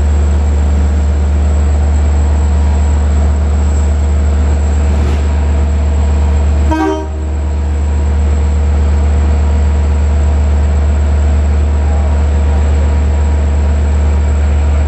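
EMD DM30AC dual-mode locomotive standing at the platform with its diesel engine idling: a steady low drone with several steady higher tones over it. About seven seconds in there is a brief break with a short dip in loudness.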